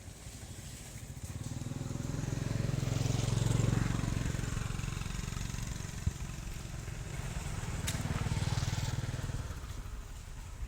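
A motor vehicle's engine rumbling as it passes, swelling and fading twice.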